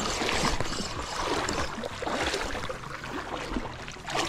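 River water splashing and sloshing in a continuous rush around a wading angler playing a large king salmon on a spinning rod, with a louder burst just before the end.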